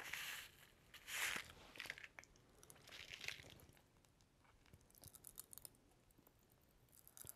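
Faint crunching and crinkling of hard candy being eaten and its packet handled: a few short bursts in the first few seconds, then a scatter of small clicks.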